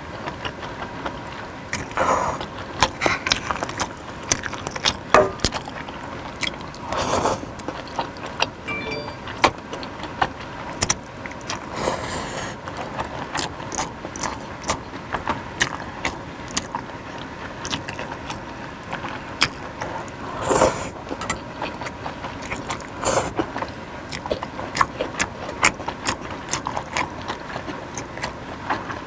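Close-miked eating of suki soup with beef: wet chewing and mouth sounds, with frequent short sharp clicks and a few longer noisy bursts of about half a second.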